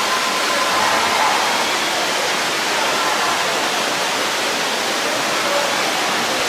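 Steady rushing of falling water.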